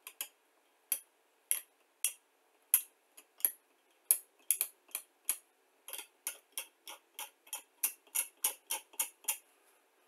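A blade scraping paint off a painted plastic model part in short, sharp strokes. The strokes are spaced out at first, then quicken to about four a second from about six seconds in, and stop shortly before the end.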